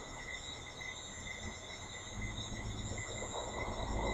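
Insects chirping, a steady trill of several high, finely pulsing tones, with a low rumble that grows louder in the second half.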